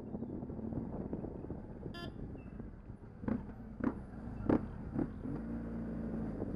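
Motorcycle engine running at low speed with a steady low rumble in slow street traffic, and a short vehicle horn toot about two seconds in. Four sharp knocks follow over the next couple of seconds.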